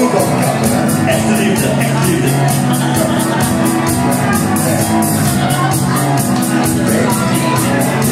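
Live pop music with a steady beat, played loud through a PA, with a man singing into a handheld microphone.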